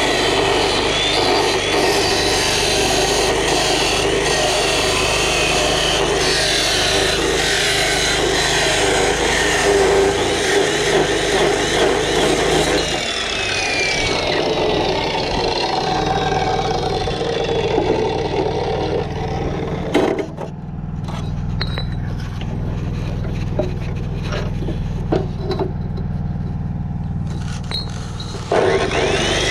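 An engine running steadily; its note changes about halfway through, with scattered knocks and scraping and one sharp knock later on.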